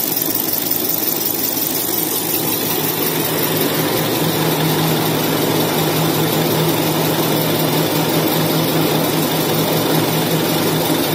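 XY-TQ-G semi-automatic maxi-roll tissue cutting and roll-making machine running: a steady mechanical drone, with a low hum that grows stronger about four seconds in.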